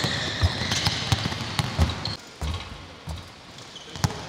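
Basketballs bouncing on a gym floor during a team shooting warm-up, irregular dull thuds from several balls, thinning out after about two seconds, with one sharp knock about four seconds in.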